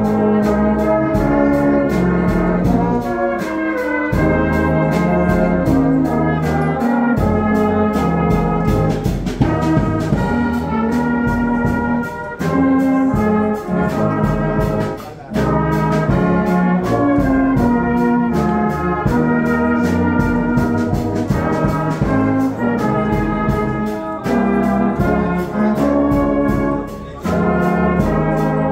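Salvation Army brass band of tubas, euphoniums, tenor horns and trombones playing sustained chords together, with two short breaks between phrases.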